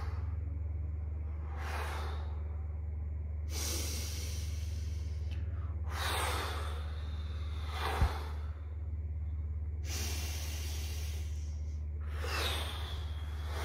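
A woman taking several deep, slow breaths in and out, each one a rush of air lasting about a second, as a pranayama breathing exercise. A steady low hum runs underneath, and there is a single short knock about eight seconds in.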